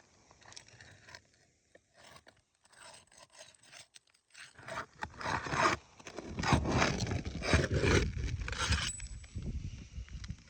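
Scraping and rubbing on asphalt roof shingles as they are worked during a shingle repairability test: faint scattered scrapes at first, then a loud, sustained stretch of scraping about halfway through that dies away near the end.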